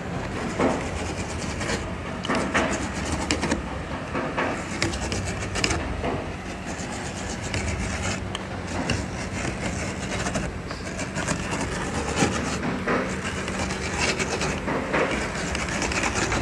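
Machinery running steadily with a low hum and frequent clattering knocks.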